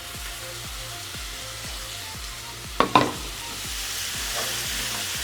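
Masala sauce base of onions, spices and freshly added tomatoes sizzling in hot ghee in a pan while being stirred. A single sharp clank of the utensil against the pan comes near the middle, and the sizzle grows louder after it.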